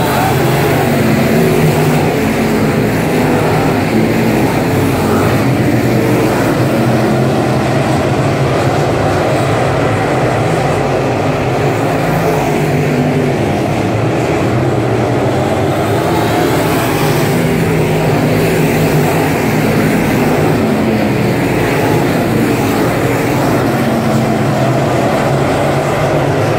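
A field of dirt-track stock cars racing around the oval, their engines running together in a loud, steady drone.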